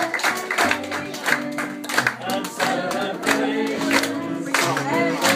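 A roomful of people singing together to live instrumental music, with sharp clap-like strikes keeping time.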